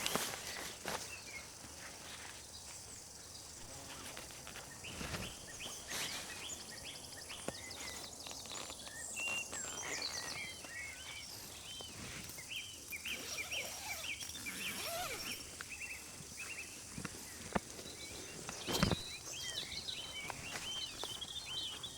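Small birds chirping over and over in quick, short calls over a steady outdoor hiss, with a few soft knocks or handling noises.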